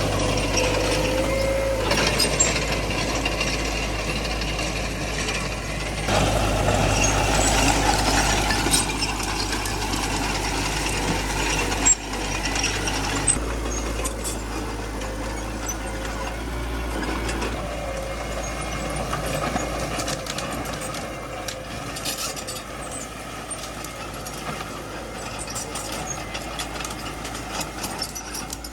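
Small crawler bulldozer working: its diesel engine runs steadily with metallic clanking and squeaking from the machine. It gets louder about six seconds in, gives one sharp knock about twelve seconds in, and eases off somewhat after that.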